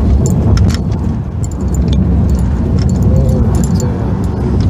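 Inside the cabin of a Mitsubishi Xpander at highway speed: a steady low rumble of road and engine, with light rattling clicks scattered throughout from something loose in the car.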